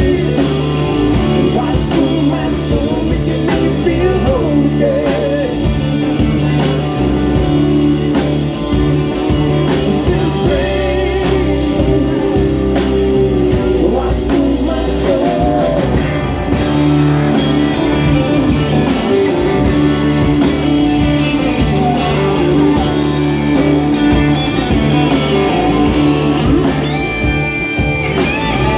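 Live rock band playing: electric guitars, bass and drums with sung vocals, amplified through a stage PA.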